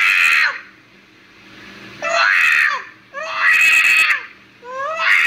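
A cat yowling loudly: four drawn-out, wailing cries with short gaps between them, each dropping in pitch at its end.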